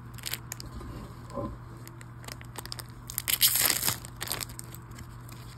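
Foil trading-card booster pack being torn open by hand, the wrapper crinkling. The loudest rip comes about three and a half seconds in.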